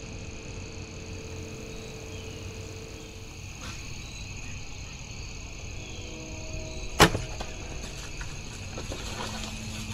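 A recurve bow is shot about seven seconds in: one sharp, loud crack with a brief ring, the bow hitting the bottom of the ladder stand on release. Fainter rustling and cracking follow as the doe bolts, over a steady chorus of crickets and insects.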